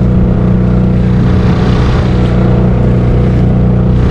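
Yamaha 3 hp outboard motor running at a steady, constant throttle, pushing an inflatable kayak boat along, over a steady hiss of water and wind.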